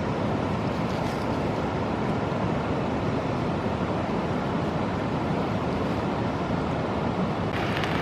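Steady rushing of river water, an even noise with no break; a brighter hiss joins near the end.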